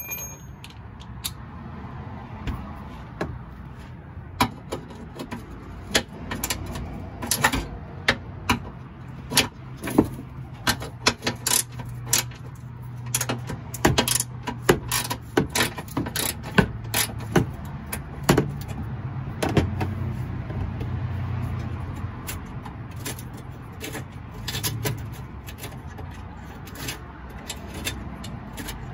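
Hand ratchet with a 10 mm socket loosening the fog light's mounting bolts: a long run of sharp, irregular metallic clicks and clinks.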